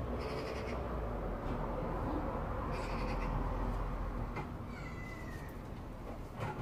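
Short animal cries, repeated a few seconds apart, with one gliding call about five seconds in, over a low hum.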